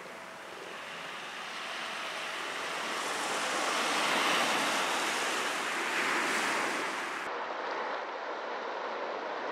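Small waves breaking and washing up a shingle beach, a steady surf hiss that swells twice in the middle. Near the end it changes abruptly to a duller, steadier wash.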